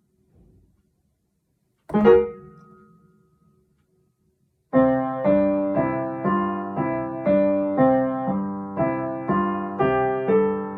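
Piano playing: one chord struck about two seconds in and left to ring away, then from about halfway a steady, even run of repeated chords, a little over two a second.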